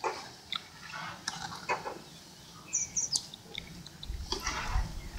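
Metal spoon clicking and scraping against a perforated ladle as batter is pushed through it into a wok of hot oil, with the boondi frying in the oil. Two short high chirps come about three seconds in, and a low rumble rises near the end.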